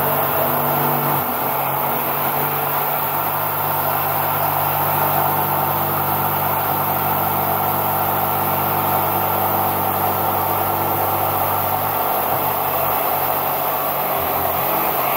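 Electric jigsaw running steadily, its blade cutting through thick blue foam board. The motor's pitch shifts slightly about a second in and again near the end as the load changes.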